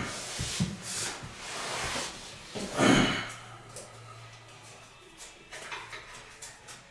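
Scrapes and knocks of a drywall taping knife and mud pan being handled while working joint compound, with the loudest scrape or knock just before three seconds in and quieter clicks after.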